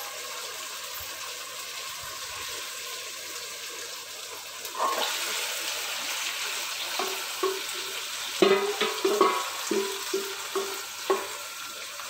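Onion-tomato masala sizzling in a clay pot. About five seconds in, marinated chicken pieces are tipped in from a bowl and the sizzle grows louder, followed by a wooden spatula scraping and knocking against the bowl and pot several times as the chicken is pushed in.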